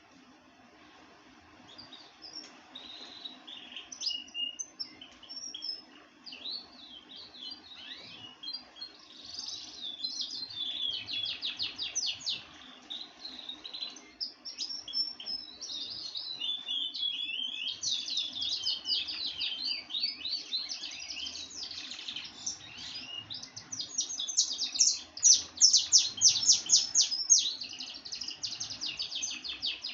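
Songbird singing a long, varied song of fast chirps and rapid trills, loudest near the end, over a faint steady low hum.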